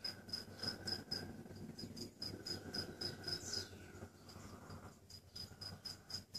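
Cricket chirping: short, evenly spaced high chirps, about four a second, with a couple of short pauses.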